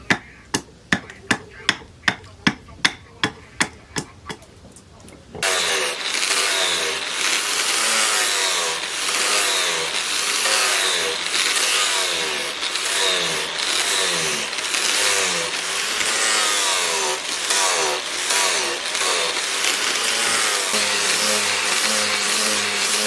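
Hammer blows on the axe being forged, about three a second. About five seconds in, they give way abruptly to a loud, continuous, rhythmic rasping of wood being worked, stroke after stroke.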